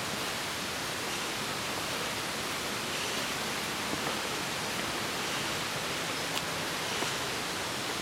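A steady rushing hiss, with a few faint footsteps on a rocky, leaf-covered trail.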